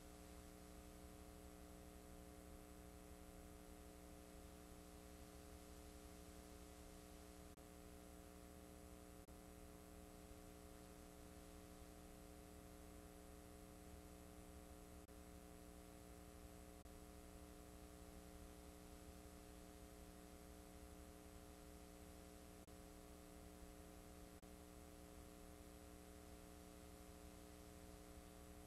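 Near silence: a faint, steady electrical hum with light hiss. This is the noise floor of a blank stretch of videotape.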